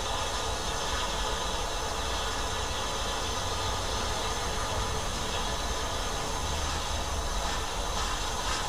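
Steam locomotive 34046 Braunton, a rebuilt Bulleid West Country class Pacific, standing with steam up: a steady hiss of escaping steam over a low rumble.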